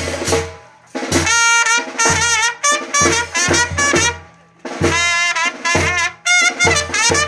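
Brass band playing a son: trumpets and saxophones in short, bending phrases over drum, with brief breaks between phrases about a second in and again near the middle.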